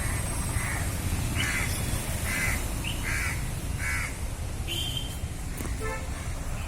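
A crow cawing repeatedly, about six caws in the first four seconds, over a steady low rumble.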